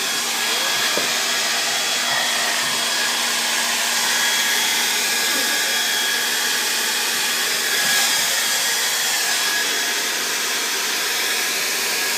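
Handheld hair dryer running steadily, a constant rush of air with a faint steady whine in it.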